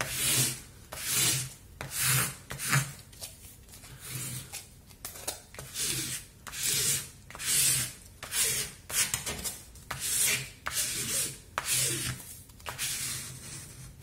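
Hands rubbing and smoothing a diamond painting canvas in its plastic packaging: a run of short rustling swishes, roughly one a second, with a few sharp crinkles between them.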